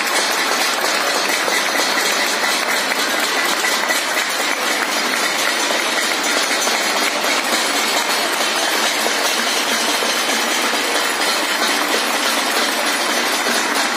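A neighbourhood-wide crowd clapping from balconies all around, in a dense, steady clatter of applause.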